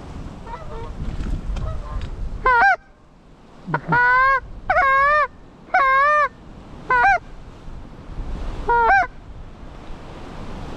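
Six loud Canada-goose-style honks at uneven intervals. They begin about two and a half seconds in, and each call breaks sharply upward in pitch. Wind rumbles underneath.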